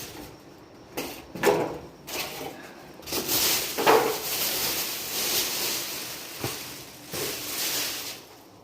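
Packaging being pulled off a newly bought small refrigerator: a few knocks, then several seconds of steady scraping and rustling that stops shortly before the end.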